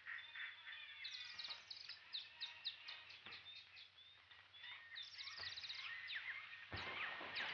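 Jungle bird calls: many quick chirps and whistles overlapping, with a short noisy burst near the end.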